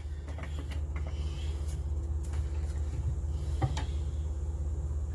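A steady low hum, with faint rustles and light taps of flower stems being tucked in among food on a wooden serving board, and one sharper click about three and a half seconds in.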